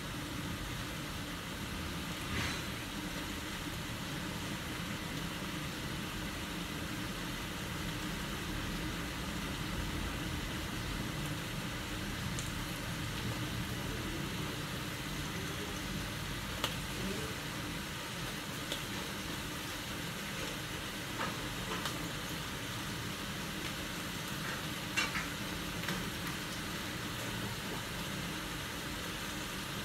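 Tocino (sweet cured pork) simmering in its marinade and water in an aluminium wok over a gas burner: a steady bubbling sizzle as the liquid cooks down, with a few small pops.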